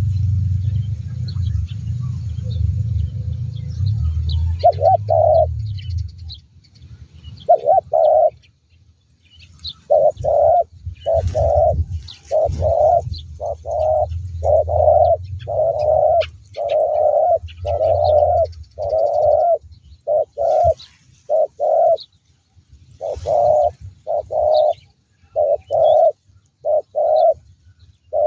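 Spotted doves cooing: short mellow coos in phrases of two or three notes, starting about five seconds in and repeating steadily. A low rumble underlies the first few seconds and returns briefly in the middle, and faint high chirps of small birds are scattered through.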